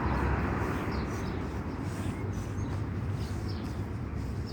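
Street ambience: a steady low traffic rumble with a few faint, short high chirps scattered through.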